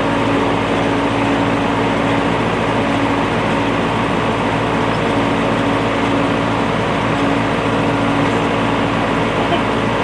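Case 580C tractor-backhoe engine running steadily at a constant speed, a loud drone with a held tone and no change in pitch.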